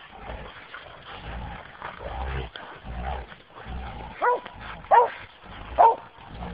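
Hunting dogs barking at a wild boar they are holding: three short, sharp barks in the second half, each dropping in pitch, over low rumbling scuffle noise in the first half.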